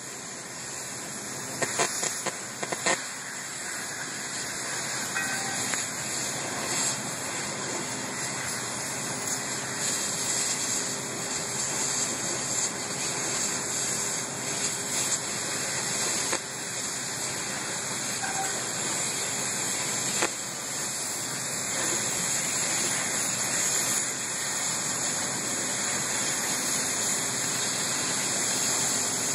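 Steady high hiss of a cutting torch working through the steel tank of a water tower, with a few sharp snaps about two to three seconds in.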